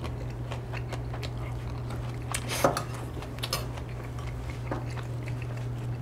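Metal spoon and tableware clinking against ceramic dishes and bowls during a meal: a few scattered light clinks, the sharpest two coming in the middle. A steady low hum runs underneath.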